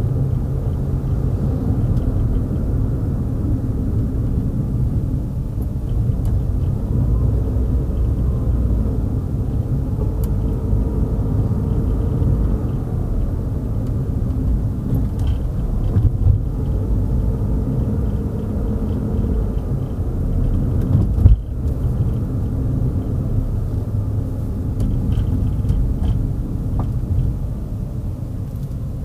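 Car being driven: steady low rumble of engine and tyre noise, the engine note rising and falling slightly with speed. A single short thump, like the car going over a bump, comes about two thirds of the way through.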